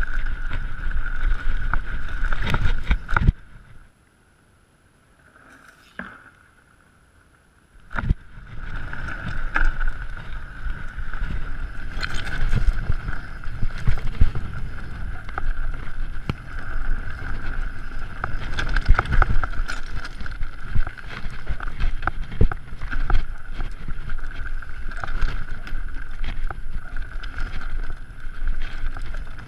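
Mountain bike riding fast down a rough dirt and stone trail: tyres running over the ground, with constant rattling and knocks from the bike, and wind on the microphone. About four seconds in, the sound drops away almost completely for a few seconds, then comes back.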